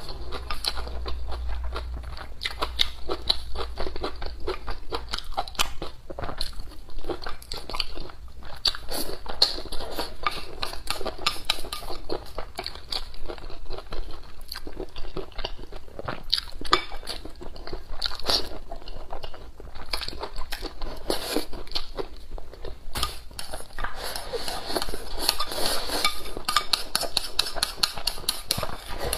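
Close-miked sounds of a person eating: chewing and mouth noises, with wooden chopsticks clicking and scraping against a ceramic bowl, busiest near the end as the bowl is scraped out.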